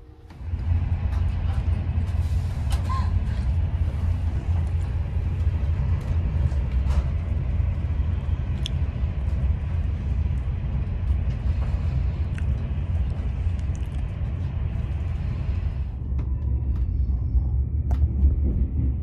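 SBB passenger train running at speed, heard from inside the coach: a steady low rumble of wheels and running gear with a few faint clicks. About sixteen seconds in the higher hiss drops away and the low rumble goes on.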